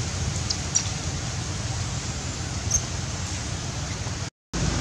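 Steady rushing outdoor background noise with a low rumble, and a few faint, brief high chirps. The sound drops out completely for a moment near the end.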